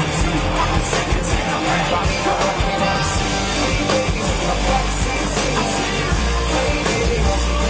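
Live concert music played loud over a PA, with a heavy bass line and some singing, as picked up by a small camcorder's microphone in the crowd.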